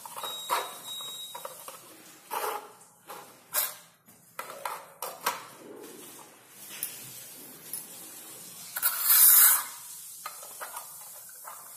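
Small toy alphabet blocks knocking and clicking against each other as a toddler stacks them into a tower, in scattered short taps. A brief hiss-like rustle, the loudest sound, comes about nine seconds in.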